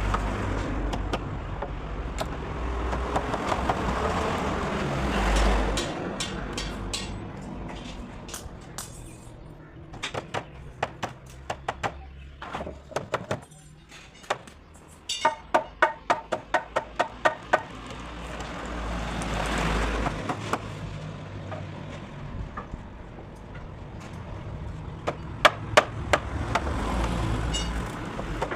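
A quick run of sharp knocks, about four a second for a couple of seconds midway, with scattered single knocks over a low rumble that swells and fades several times.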